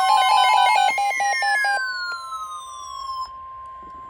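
Electronic emergency alert tones: a rapid pulsing beep, about six a second, over a siren-like tone gliding downward. The beeping stops about two seconds in, and the falling tone settles into a steady high tone.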